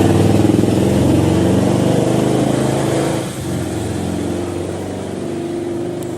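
An engine running close by, loud, its level dropping about three seconds in.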